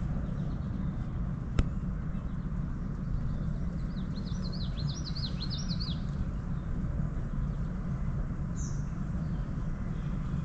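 A songbird sings a quick twittering phrase of rapid up-and-down notes about four seconds in, and gives a short call near the end, over a steady low rumble of background noise. There is a single sharp click about a second and a half in.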